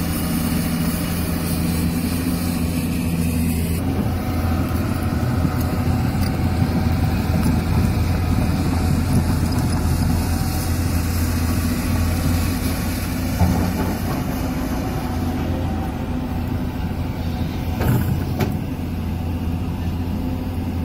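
Hyundai HX210S hydraulic excavator's diesel engine running steadily, a constant low drone. Two brief knocks come through, one about two-thirds of the way in and one near the end.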